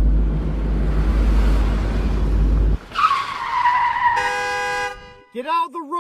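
A sports car's engine rumbling as it pulls in, then a tire screech about three seconds in, falling slightly in pitch as the car brakes to a stop. A short, steady horn-like tone follows, then a string of rising-and-falling electronic chirps near the end.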